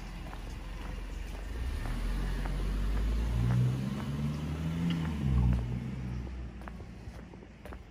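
A car driving past: its engine and tyre noise grows to a peak around the middle and fades away, the engine's pitch dropping as it goes by.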